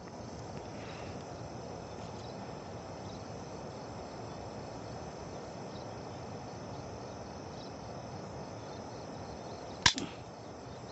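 A single sharp air rifle shot near the end, over a steady background of insects chirring.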